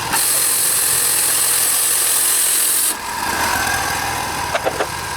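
Wood-Mizer band sawmill cutting through a log with its engine running. The blade's high hiss is loud for about the first three seconds, then drops away while the engine keeps running.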